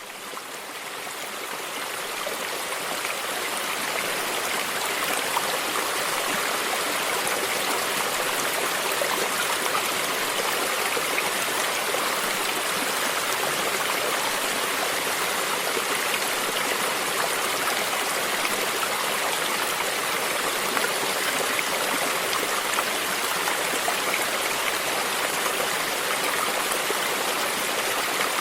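Stream flowing, a steady rush of babbling, lapping water, fading up from silence over the first few seconds.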